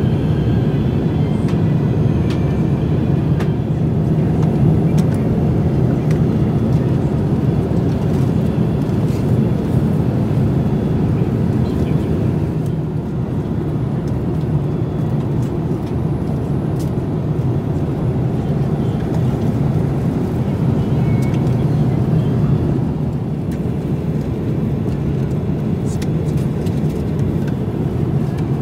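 Steady low roar inside the cabin of a Boeing 787-8 airliner in flight: engine and airflow noise, dipping slightly in level about halfway through, with a few faint clicks.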